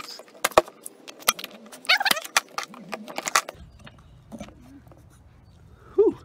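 Plastic and rubber clicks and knocks as fingers pry the rubber end cap off a JBL Xtreme speaker, a quick run of sharp clicks in the first three and a half seconds, then a short squeak near the end as the cap comes free.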